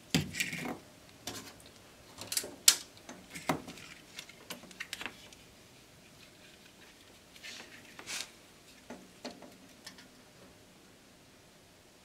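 Handling noise at a workbench: scattered light clicks, taps and rustles as a soldering iron and its bits are handled. They come mostly in the first few seconds, with a few more around eight to nine seconds, then it goes quiet.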